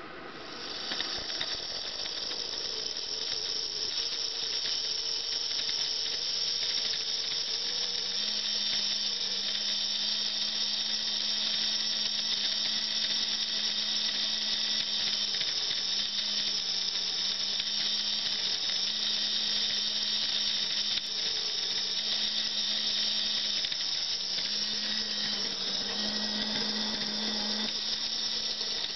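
The small can motor of a Playart F7 HO scale locomotive running on the bench through test clip leads. It makes a steady high-pitched whine that builds over the first second. A lower wavering hum joins about six seconds in.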